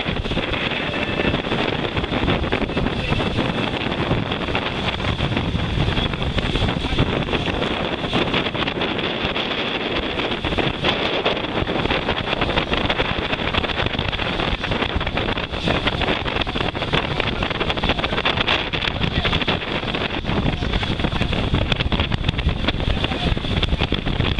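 Wind buffeting the microphone over the rush and splash of water along the hull of a sailing yacht heeled over under sail. A steady, rough noise with no breaks.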